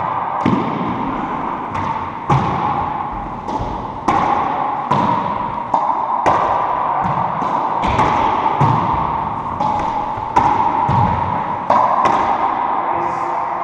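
Racquetball rally: the ball being struck by racquets and smacking off the walls and floor, a sharp hit every half second to second, each echoing in the enclosed court.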